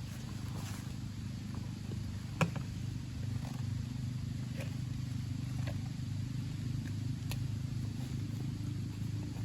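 A steady low mechanical hum with scattered light clicks and one sharp knock about two and a half seconds in.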